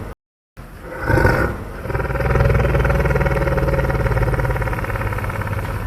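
Homemade dinosaur sound effect: a short roar about a second in, then a long, low rumbling growl that fades slightly near the end.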